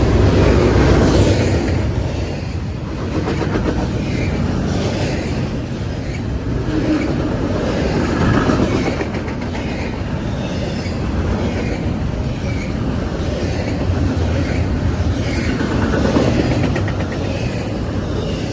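Intermodal freight train's cars rolling past, their wheels clicking over the rail joints.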